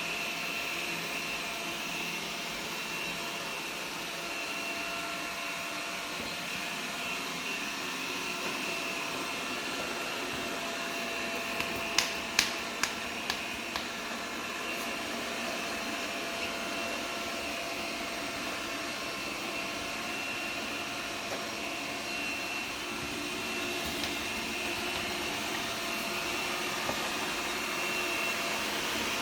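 Xiaomi robot vacuum running, a steady whir with a constant whine over it. About twelve seconds in, a quick run of four or five sharp knocks.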